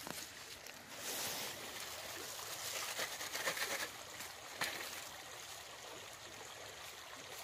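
Dirt shaken through a wire-mesh sifter onto a buried foothold trap: a soft, steady hiss of falling dirt for about three seconds, then a single light knock. The dirt is being sifted fine so no trash or clumps end up over the trap.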